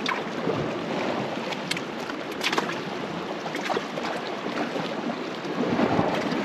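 Sea water sloshing and washing against a rocky shore, with scattered sharp clicks and small splashes.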